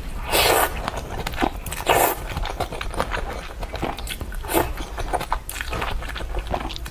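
A person slurping noodles out of a spicy malatang broth in several long, noisy pulls, with wet chewing and smacking clicks in between.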